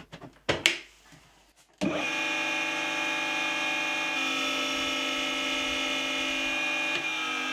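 Clicks as the red three-phase connector is plugged in, then about two seconds in a three-phase electric motor, wired in star configuration, switches on and runs unloaded with no belt on its pulley. It runs with a steady, even hum, a sign that it is running well.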